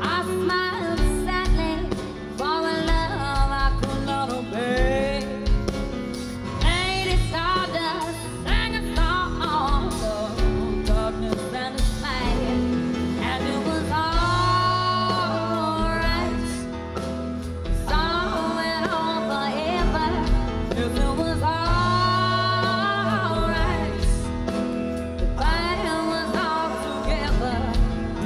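Live rock band playing a slow song, with a woman singing lead into a microphone in long phrases over drums, bass and electric guitar.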